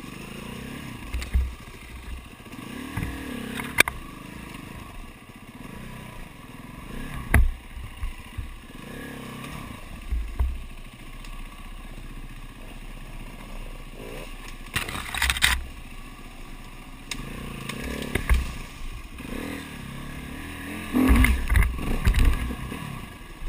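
Enduro dirt bike engines revving up and dropping back to idle over and over as the bikes pick their way through a log obstacle. Sharp knocks and clatter come from the bikes bumping over the logs, the loudest about 15 s in and around 21–22 s.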